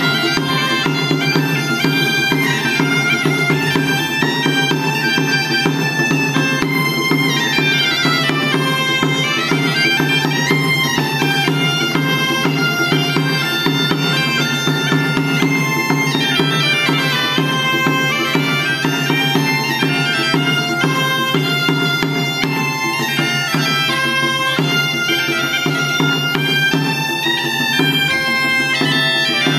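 Catalan bagpipes (sac de gemecs) playing a melody over a steady, unbroken drone.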